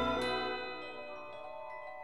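Background music: a full chord fades out in the first half second, followed by light, ringing single notes.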